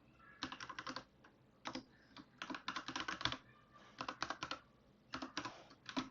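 Typing on a computer keyboard: quick runs of key clicks in several short bursts with brief pauses between them.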